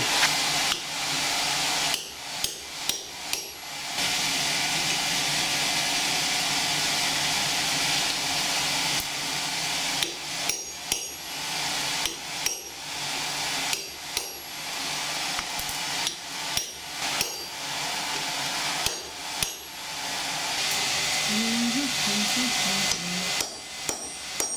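Hand hammer striking hot high-carbon steel on an anvil, in several quick runs of blows with pauses between, over a steady rushing noise.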